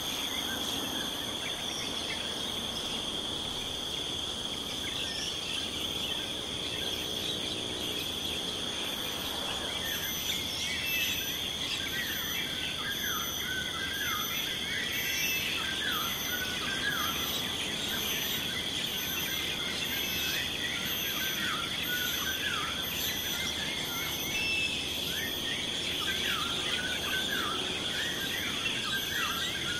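Ambient field recording of insects: a steady high-pitched drone with faster pulsing calls above it, and from about a third of the way in, many birds chirping over the top. A brief low hum sounds just before the birds start.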